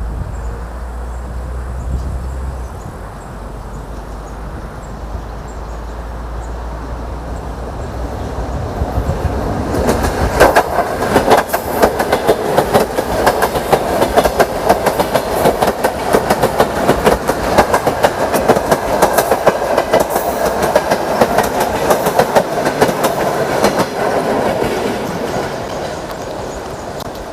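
ED4M electric multiple unit crossing a bridge, its wheels clattering rhythmically over the rail joints. A low rumble builds for about ten seconds as it approaches, then the quick clickety-clack comes in loud and fades near the end.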